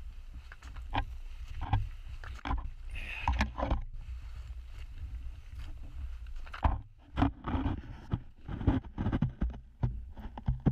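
Footsteps crunching through snow at a walking pace, a little faster and sharper from about two-thirds of the way in, over a low rumble on the microphone.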